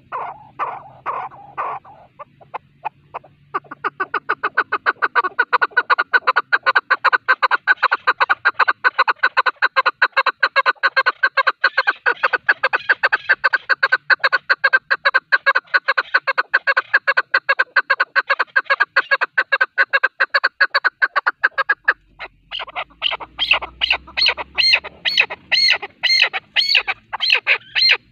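Chukar partridge calling: a few spaced notes, then a long run of rapid, evenly repeated chuk notes. After a brief break near the end, the notes turn louder, higher and slower.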